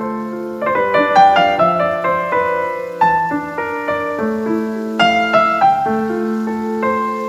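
Gentle background piano music: soft notes and chords struck one after another, each ringing on as it fades.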